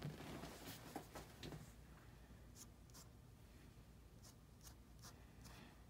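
Faint scratching of a fine-tip ink pen drawing lines on paper, in short separate strokes, with a slightly louder rustle of hand and paper in the first second and a half.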